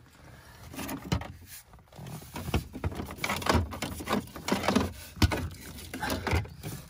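Broken hard-plastic dashboard pieces being worked loose and pulled out by hand: an irregular run of clicks, knocks and rattles of plastic on plastic.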